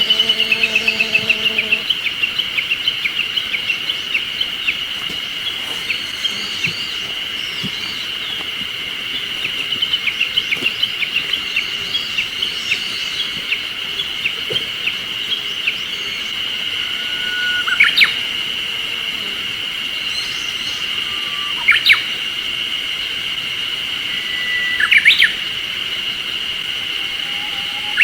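Wild songbirds calling over a steady high-pitched drone, with quick ticking notes in the first half and three short, loud calls sweeping upward in pitch later on.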